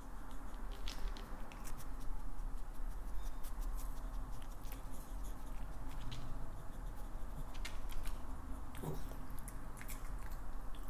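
A small dog licking and chewing at its food: scattered soft wet clicks and smacks, irregular, over a faint steady hum.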